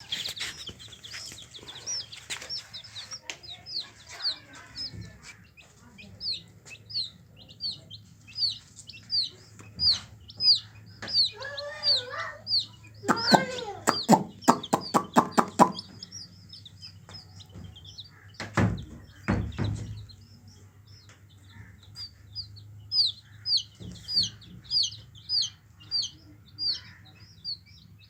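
Baby chicks peeping: a steady run of high, short, falling chirps, one or two a second. Midway an adult hen clucks in a quick series, and a couple of low thumps follow.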